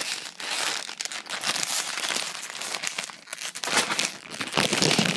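Ruffles potato chip bag crinkling as it is handled, a continuous plastic rustle made of many small crackles, louder bursts of crinkling near the end.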